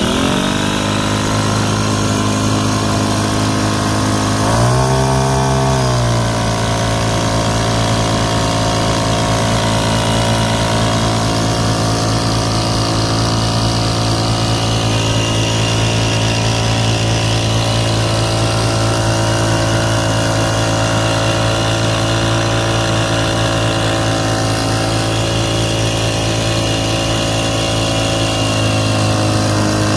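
Small petrol engine of a Sprayman SP 2000 engine spray pump running at high throttle while it sprays. It speeds up at the start, revs higher for a moment about five seconds in, then settles into a steady run.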